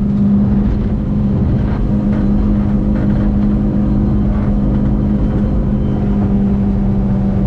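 90 hp outboard motor running steadily at high throttle near its rev limiter, pushing the boat on plane at about 33 mph; its pitch holds steady throughout.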